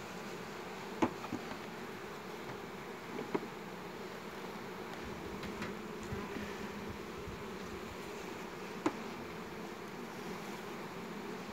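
Honeybees buzzing steadily over an open hive. A few sharp clicks come through from the wooden frames being handled, about a second in, around three seconds and near nine seconds.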